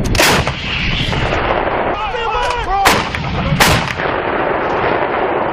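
Artillery guns firing: three loud blasts, one at the start and two close together about three seconds in, over a steady low rumble.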